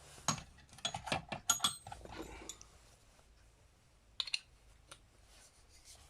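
Small metal carburetor parts and tools clicking and clinking together while a Mikuni carburetor is taken apart: a quick run of clicks in the first two seconds, then a few more taps about four seconds in.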